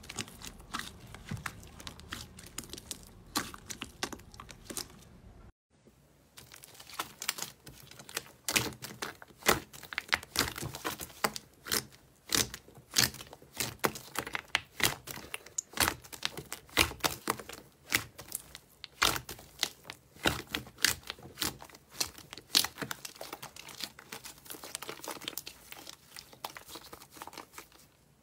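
Slime being pressed, kneaded and squeezed by hand in a bowl: a dense run of sharp crackling pops and clicks. It breaks off briefly about five and a half seconds in, then returns louder and more crowded.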